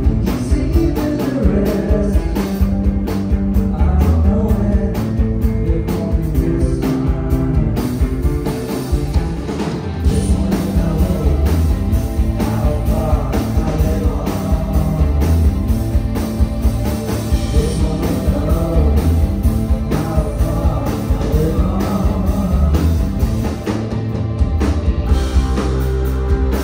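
Live rock band playing at full volume: several electric guitars over a steady drum beat, with a sung lead vocal.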